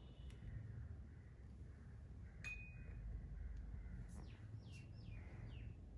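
Faint, low cat snoring, with a few short falling chirps about four to five and a half seconds in.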